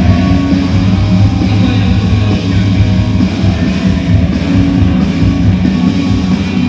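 Rock band playing live through a large PA, electric guitars and drums loud and steady, heard from the crowd on the floor of a large hall.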